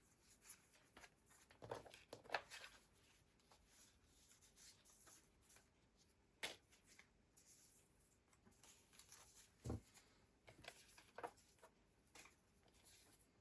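Near silence broken by a few faint, scattered clicks and rustles of small things being handled on a table.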